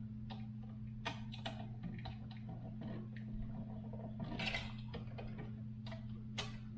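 Irregular small clicks and taps as wires and a switch are handled and pushed into a wall electrical box, over a steady low hum.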